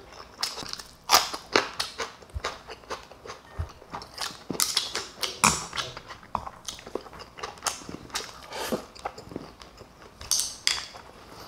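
Close-miked eating: a person chewing and smacking a mouthful of food, with many irregular sharp clicks.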